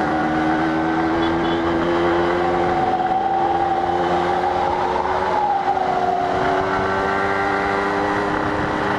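Yamaha RX-King motorcycle's 135cc two-stroke single-cylinder engine running steadily under way, its pitch climbing gently and then easing off a little just past halfway.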